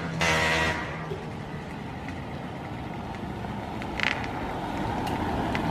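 A Yamaha RX-King 135cc two-stroke motorcycle engine being revved. One short rev dies away in the first second, then the engine runs on with a steady rough noise that slowly grows louder, with a single sharp click about four seconds in.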